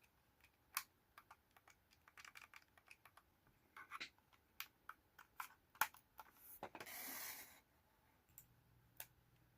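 Quiet, irregular small plastic clicks and taps of a computer mouse being handled, with a short rustle about seven seconds in.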